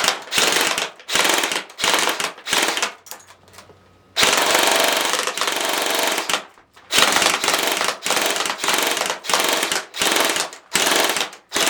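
Crosman Pulsar 72 electric airsoft gun (AEG) firing full-auto on an 11.1 V LiPo battery in repeated bursts: a few short bursts, one long burst of about two seconds about four seconds in, then about eight bursts under a second each. The cheap magazine is struggling to feed at this rate of fire.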